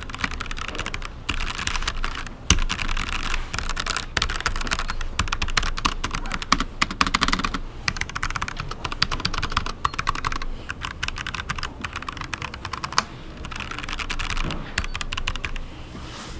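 Typing on a Hansung TFG ART mechanical keyboard with linear ArtBox switches: keystrokes clattering in quick runs with a few short pauses, thinning out near the end.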